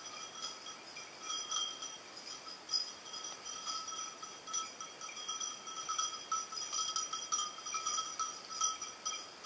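Small metal bells tinkling continuously and unevenly, several clear ringing tones that swell and fade without a steady beat.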